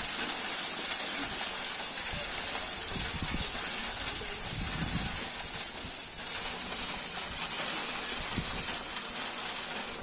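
Motorised coffee grinder running steadily while roasted coffee beans are fed into its hopper and ground, a constant noisy whir.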